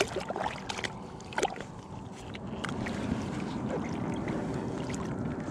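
Water splashing and lapping around a landing net while a small cutthroat trout is unhooked in it. There are a few sharp taps and splashes in the first second and a half, then a steady wash of water.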